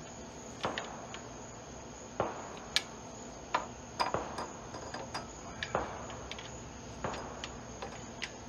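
Small pry bar and camshafts clinking against a Hyundai Accent cylinder head as the cams are levered out: irregular sharp metal taps and knocks, some ringing briefly.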